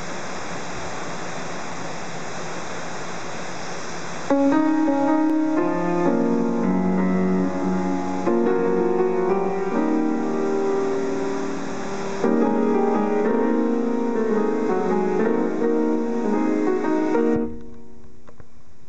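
Steinway grand piano being played: chords and a melody come in about four seconds in, over a steady hiss, and drop to soft sustained notes near the end.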